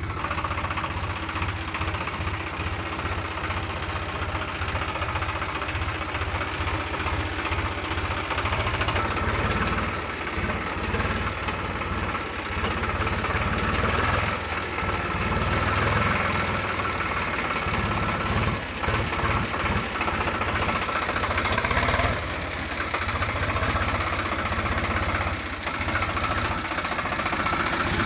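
Swaraj 735 FE tractor's three-cylinder diesel engine running steadily as the tractor drives, a continuous low rumble.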